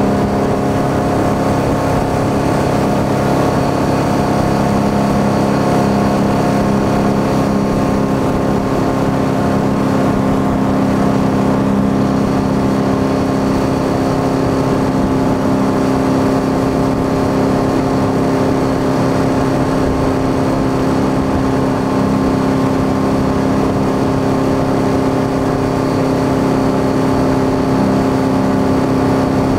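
Sanger DXII ski boat's inboard engine running steadily at towing speed while pulling a barefoot water skier, its pitch holding level throughout, over the rush of the wake.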